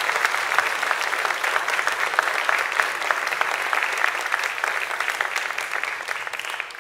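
Crowd applause: many hands clapping in a dense, even patter that slowly fades and stops near the end.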